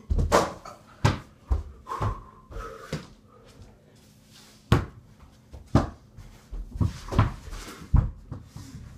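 Irregular thumps and bangs of a mini basketball bouncing on the floor and hitting the door-mounted hoop's backboard, mixed with heavy footfalls. Near the end comes a hard thud as the player falls to the floor.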